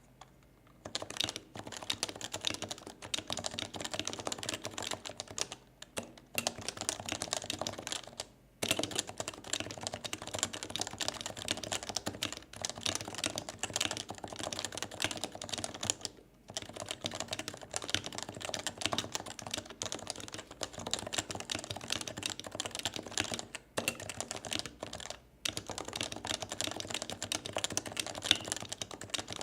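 Fast continuous typing on a Leopold FC660C keyboard with 45 g Topre electrostatic capacitive switches, the rubber-dome keys thocking in quick runs broken by a few short pauses.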